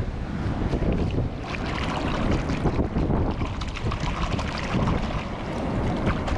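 Wind buffeting the microphone over surf washing ashore, with crackly splashing water from about a second and a half in.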